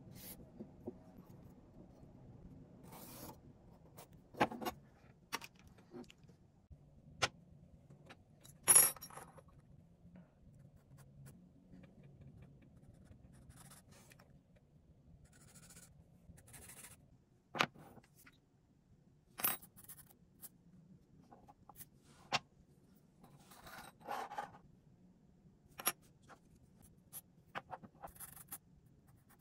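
Scattered clicks, taps and brief scrapes of a steel ruler, a marker and a wooden pen blank being handled and set down on a workbench, with short scratches of a marker drawing lines. The loudest is a sharp clink about nine seconds in.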